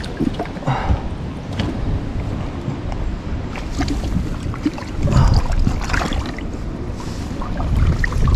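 Wind buffeting a body-worn camera's microphone and jacket fabric rustling against it, with scattered light knocks on the boat's deck.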